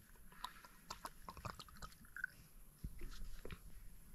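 Faint small clicks, bottle handling and mouth sounds as a person takes a swig of whisky liqueur from the bottle.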